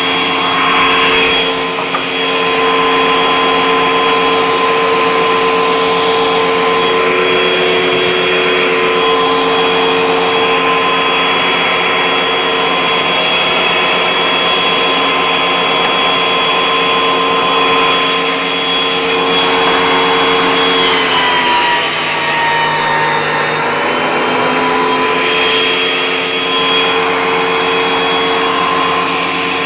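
Benchtop thickness planer running with a dust extractor drawing on it: a steady motor whine over rushing air. About two-thirds of the way through, the motor's pitch sags for a few seconds as it comes under load, then recovers.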